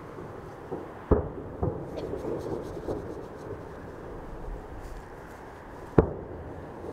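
Distant fireworks shells exploding: two sharp bangs, one about a second in and one near the end, with several smaller pops between.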